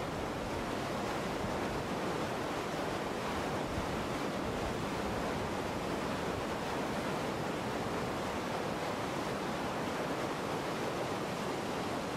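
Rushing, turbulent white water: a steady, even rush of water noise with no break or change.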